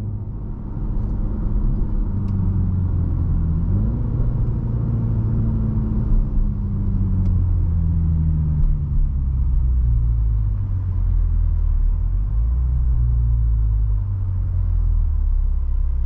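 In-cabin sound of a 2023 Mini Countryman John Cooper Works' turbocharged 2.0-litre four-cylinder engine over road rumble as the car slows in traffic. The engine note falls overall, with a brief rise in pitch about four seconds in.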